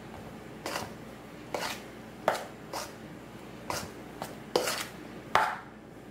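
Metal spoon knocking and scraping against a stainless steel mixing bowl while mashed potatoes are stirred: about eight sharp strokes at uneven intervals.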